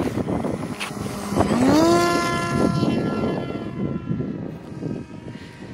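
FPV Glider 2600's motor and propeller spooling up for takeoff: a whine that rises in pitch about a second and a half in, then holds steady as the glider climbs away and fades near the end.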